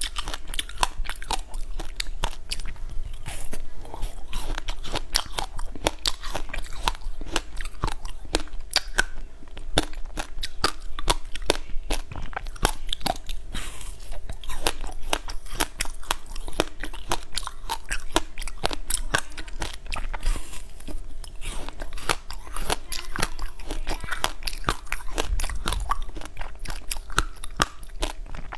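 Close-miked biting and chewing of a frozen passion fruit pop on a stick: a continuous stream of small, crisp crunches of the pulp and seeds.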